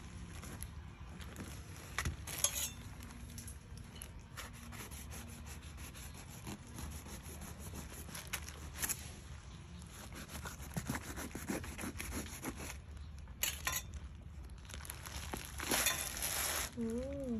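A large knife cutting and scraping through a jackfruit's spiky rind and fibrous flesh, heard as many small crackling clicks and rubbing. A louder rustling burst comes near the end as the fruit is pulled apart.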